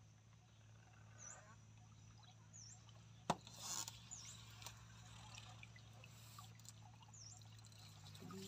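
Square lift net being hauled up out of still water, with water running and trickling off the mesh. There is one sharp click about three seconds in, and a few faint high chirps.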